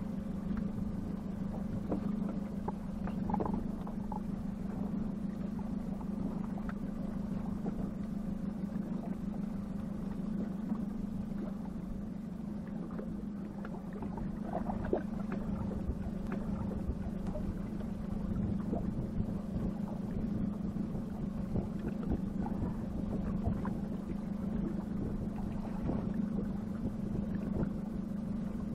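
Boat's outboard motor running at a steady speed, an even hum with no change in pitch, with a few faint knocks over it.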